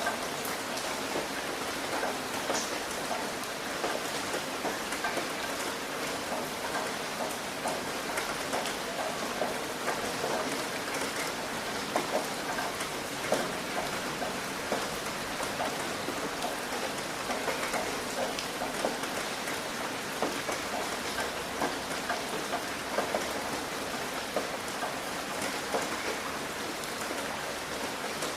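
Steady rain falling on a roof, a continuous patter with many individual drops striking distinctly.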